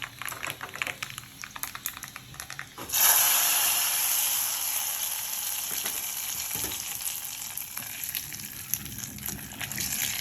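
A tempering of mustard seeds, cumin and dried red chillies in hot oil crackling and popping, then about three seconds in a sudden loud sizzle that slowly dies down, as the hot seasoning oil meets the wet dal kulambu.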